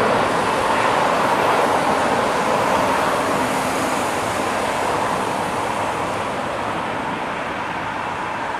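Jet roar of a Boeing 747-436's four Rolls-Royce RB211 turbofans as it climbs away after take-off, fading steadily as the aircraft recedes.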